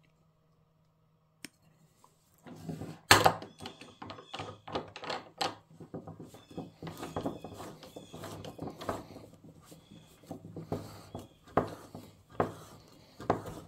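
MicroGard spin-on oil filter's steel can being turned by hand in a bench-mounted oil filter cutter, the blade scraping and biting into the thick casing with irregular clicks and knocks. It starts about two and a half seconds in, after a single click.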